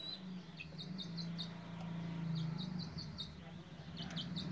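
Domestic pigeons cooing, a low drawn-out rumble that breaks and resumes, with clusters of short high chirps repeating over it.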